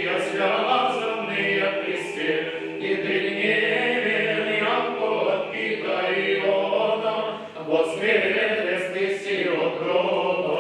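Small male choir singing Russian Orthodox liturgical chant a cappella, several voices in sustained harmony.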